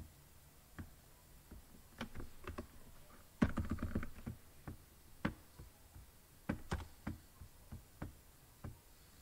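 Computer keyboard typing: irregular single key taps spread out, with a denser flurry of keystrokes about three and a half seconds in.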